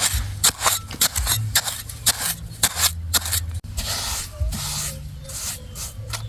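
Repeated scraping or rubbing strokes, a few a second, turning into longer hissing strokes about two-thirds of the way through.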